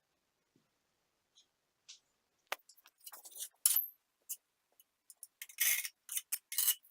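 Hand tools working on ceramic tile and thinset: sharp clicks and short scraping strokes in an irregular run, starting about two and a half seconds in.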